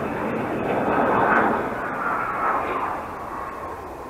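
Engine noise of an aircraft passing over, a steady rushing drone that peaks about a second in and then fades away.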